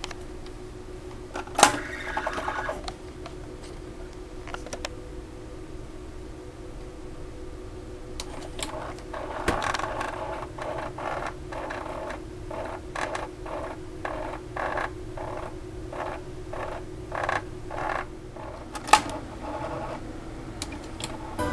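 Nakamichi BX-300 cassette deck's mechanism being worked: a sharp clunk with a brief clatter as the cassette is loaded, then a run of clicks and mechanical rattles from the tape transport, and another sharp click near the end. A faint steady hum runs underneath.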